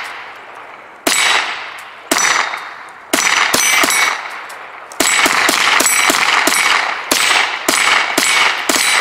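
.22 rimfire rifles firing rapidly at steel jumping targets, each shot followed by the ringing clang of the bullet striking the target. Shots come about once a second at first, then quicken to about three a second from halfway on as both shooters fire.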